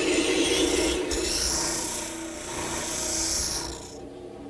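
Spindle sander running while the curved edge of a wooden towel-bar bracket is sanded against its drum: a steady rasping hiss that stops near the end.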